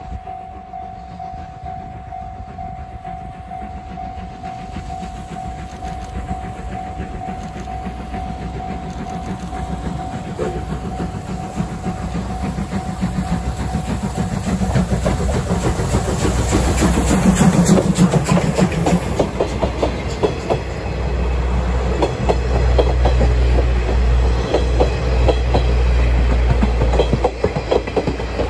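JNR Class C58 2-6-2 steam locomotive approaching under steam, its exhaust beats and running gear growing louder until it passes close by about two-thirds of the way in. Its coaches then rumble past with wheels clicking over the rail joints.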